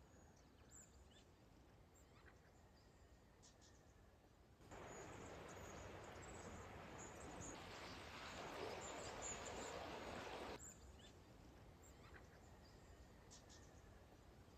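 Near silence: faint outdoor ambience, a low hiss with scattered faint high chirps. A louder stretch of hiss starts abruptly about five seconds in and cuts off about ten and a half seconds in.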